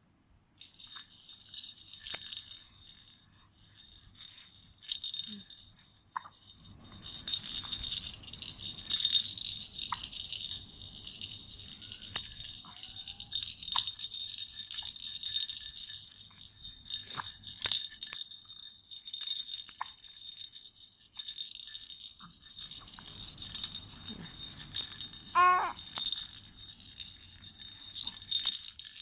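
Baby's rattle toy with small bells jingling and rattling as it is shaken, on and off, with scattered sharp clicks.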